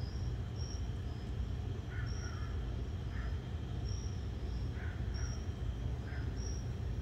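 Flames of a paraffin-wax citronella firepit burning with a steady low rumble, while crickets chirp in short high notes one or two times a second, with a lower paired chirp repeating about once a second.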